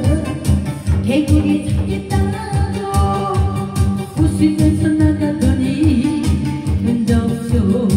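A voice singing over loud amplified backing music with a steady beat.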